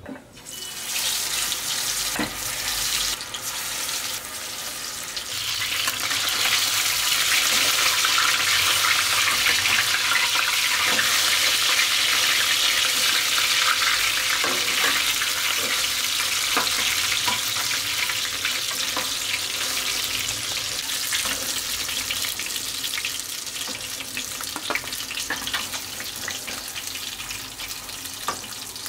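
Katla fish steaks frying in hot oil in a kadai: a loud, steady sizzle that starts abruptly about half a second in, swells over the first few seconds and eases slightly near the end. Occasional clicks from a steel spatula turning the pieces.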